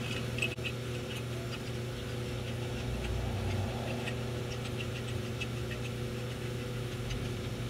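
Steady low hum of running machinery, with scattered faint metallic ticks as the nut on a filter-drier core's end plate is turned down by hand.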